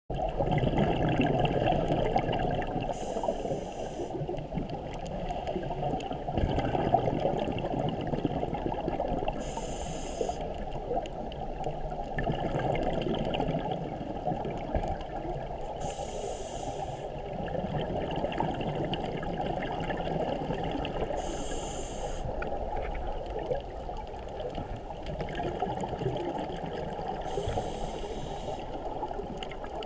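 Underwater, through a camera housing: a scuba regulator venting exhaled bubbles in a hissing burst about every six seconds, five times, over a steady low rumble of moving water.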